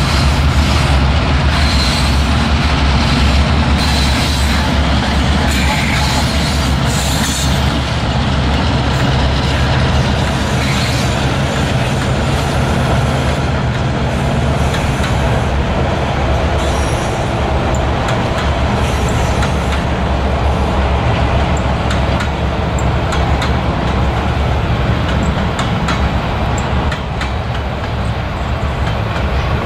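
A diesel-hauled freight train passing: the locomotives' low engine rumble moves off while a long string of freight cars rolls by, steel wheels running on the rails. The sound stays steady, easing slightly near the end.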